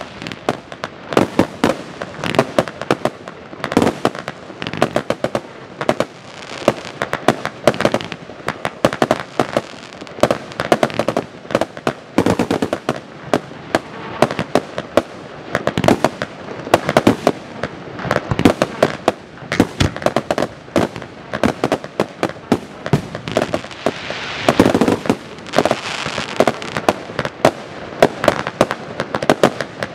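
Pyrotrade Italian Power 2 compound firework cake firing a long, varied sequence of shots, several sharp reports a second in quick, irregular succession, as its small silver and gold bursts go off overhead.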